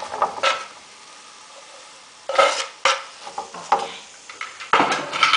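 Sliced red onions tipped from a wooden cutting board into a nonstick frying pan of hot olive oil, sizzling softly. Several sharp scrapes and knocks of the board against the pan, loudest near the middle and near the end.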